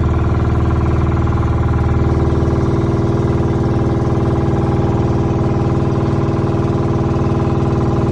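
Engine of a motorized outrigger boat (bangka) running steadily under way at cruising speed.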